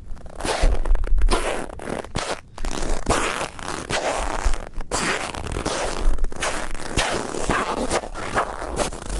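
Footsteps crunching in dry, hard-frozen snow at about −20 °C, a fast, nearly continuous run of crisp crunches with brief breaks about two and a half and five seconds in.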